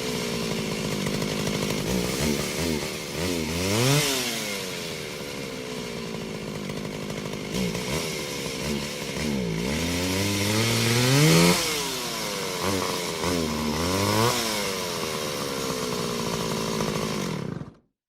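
Chainsaw running, with a steady lower speed between revs: it is throttled up and back down several times, the longest rise about two-thirds of the way through, then cuts off abruptly near the end.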